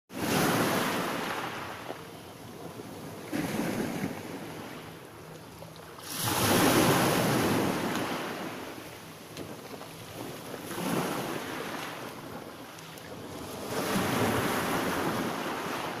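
Small waves breaking and washing up a pebble beach: five surges, roughly every three to four seconds, each swelling and then fading as the water draws back. The loudest comes about six seconds in.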